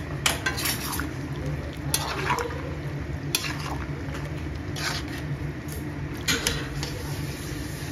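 Perforated metal spatula stirring and scraping chicken curry with potatoes around a metal kadhai, with a sharp scrape against the pan every second or so over a steady low hum.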